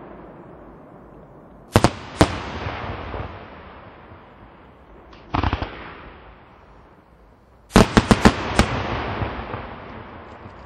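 Aerial firework shells bursting. Two sharp bangs come about two seconds in, a short cluster follows around five and a half seconds, and a quick string of about five bangs comes near eight seconds. Each burst leaves an echoing tail that fades out.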